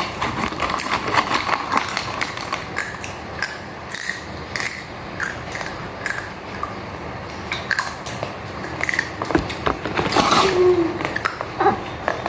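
Close-up eating sounds: irregular crunching with crackling clicks as food is chewed.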